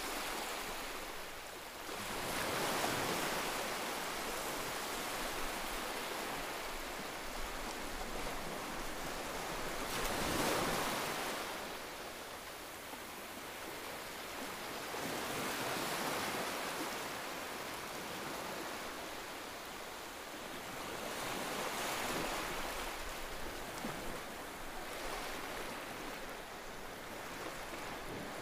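Sea surf breaking and washing onto a sandy beach, a steady rush that swells and eases every several seconds as waves come in.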